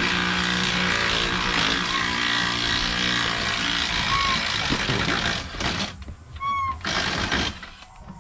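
Power impact wrench rattling as it works the wheel's lug nuts loose: one long run of about five seconds, then two short bursts.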